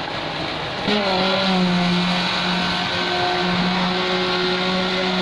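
A concrete pump truck's engine holds a steady pitched hum, coming in suddenly about a second in, over the rough scraping noise of wet concrete being shovelled and raked.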